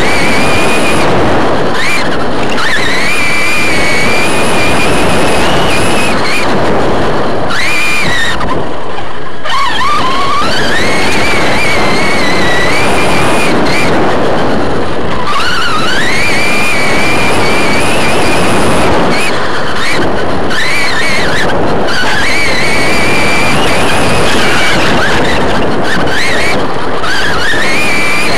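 Onboard sound of an RC short course truck racing on dirt. The motor and drivetrain give a high whine that rises and falls with throttle and drops sharply a few times as the truck slows for corners. Under it runs a constant loud rattle of chassis and dirt noise.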